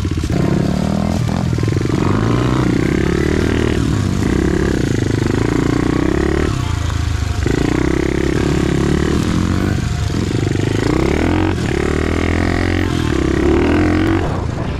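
SSR pit bike's small single-cylinder four-stroke engine being ridden, the throttle opened and closed over and over so the engine note climbs and falls every second or two.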